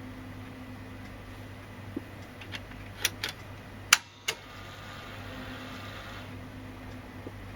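Victor BR-6400 VHS deck's mechanism clicking several times, the loudest click about four seconds in, followed by about two seconds of faint whirring that then stops, over a steady low hum.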